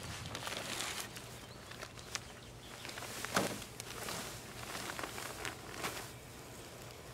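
A bag of fine play sand handled and poured into the hopper of a push broadcast spreader, with rustling and a few sharp knocks. Near the end the spreader is wheeled over the lawn with footsteps, throwing the sand out.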